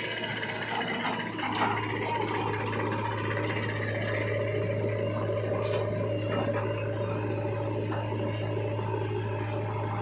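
Diesel engine of heavy machinery running steadily at a constant speed, a continuous low drone with no change in pitch.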